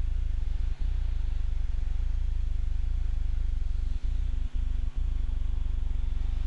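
Steady low drone of a piston-engine airplane heard inside the cockpit, with a fast even pulsing and a few brief dropouts.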